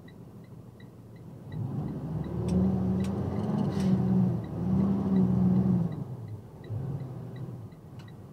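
Vehicle engine accelerating, its pitch rising and then dropping twice as it shifts up through the gears, with a few sharp knocks or rattles along the way.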